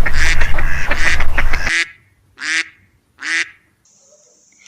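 Ducks quacking. A dense chorus of overlapping quacks over a low rumble fills the first couple of seconds, then two single quacks follow.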